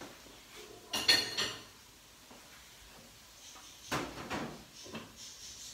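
Kitchenware being handled at the stove and counter: a clink with a brief metallic ring about a second in, then a few knocks and clatters around four seconds in.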